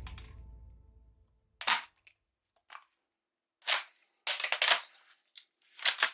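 Plastic toy gun mechanism clacking: a series of sharp clacks at irregular intervals, with several in quick succession about halfway through.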